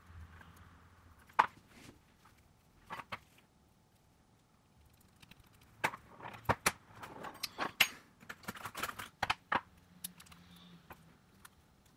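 Small clicks, taps and rustling of tools and parts being handled while a Huawei Mate 20 Pro smartphone is taken apart. There is one sharp click, then a couple more, then a busy run of clicks and taps in the middle of the stretch.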